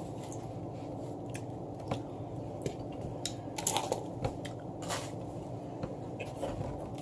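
Close-up chewing and mouth smacking of breakfast food, with scattered small clicks and a busier patch of chewing around the middle.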